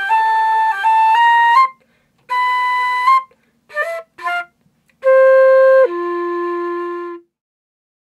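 Solo flute playing a short melody in several phrases with brief pauses between them, ending on two long held notes, the second one lower.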